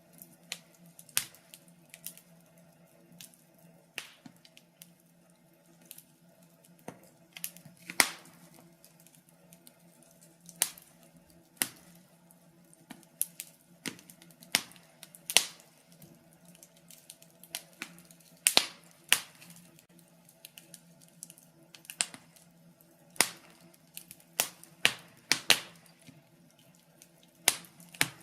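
Wood fire crackling: sharp, irregular pops and snaps, roughly one or two a second, over a faint steady low hum.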